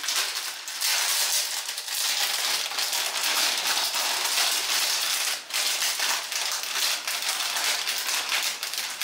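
Carbonated oxygen foam face mask fizzing on the skin: a dense, steady crackling hiss of tiny bubbles popping.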